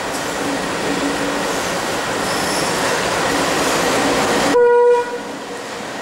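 Aurizon 6000-class diesel locomotives running past, a steady engine rumble and rail noise; about four and a half seconds in, a short horn blast lasting about half a second.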